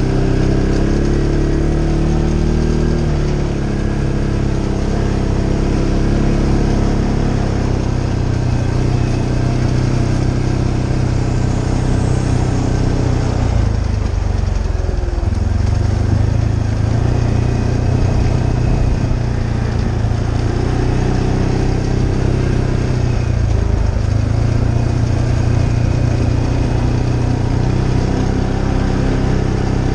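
An ATV engine running while the quad is ridden along a dirt trail. The engine note drops and picks up again about halfway through, and once more a little later, as the throttle is eased off and opened.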